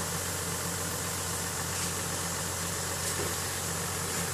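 Toyota Land Cruiser FJ80's engine idling steadily.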